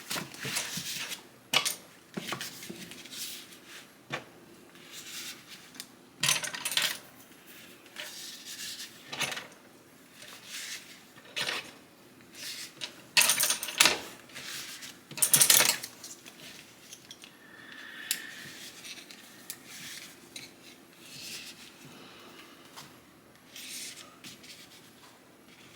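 Makeup brushes clicking and clinking against each other and rubbing on fabric as they are slotted one by one into a brush pouch. The taps come irregularly, with two louder clacks about 13 and 15 seconds in.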